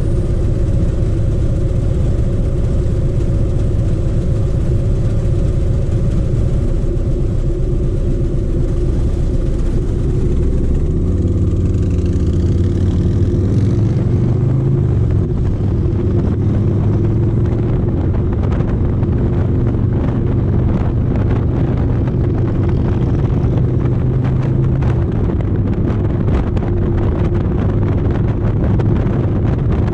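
Harley-Davidson V-twin motorcycle engine idling steadily, then revving as the bike pulls away about eleven seconds in. After that it cruises, with rushing wind noise building on the microphone as speed rises.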